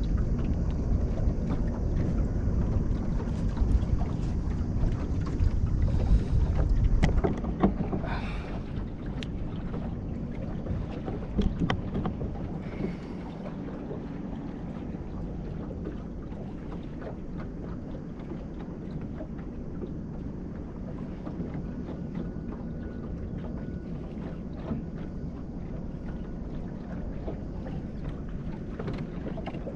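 Wind buffeting the microphone over water noise around a small boat, heaviest in the first seven seconds or so, with a handful of sharp knocks in the middle.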